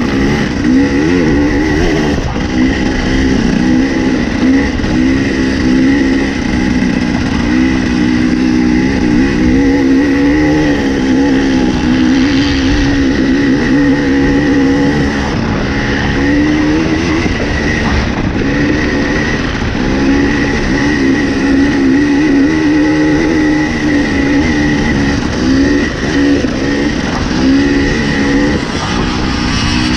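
Dirt bike engine heard up close from onboard, running hard through sand, its revs rising and falling again and again as the throttle is worked.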